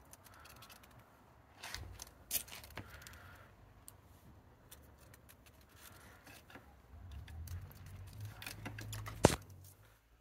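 A cat playing with a string toy among the slats of a wooden lounger: scattered light clicks and scrapes. A low rumble builds, then one sharp click comes about nine seconds in.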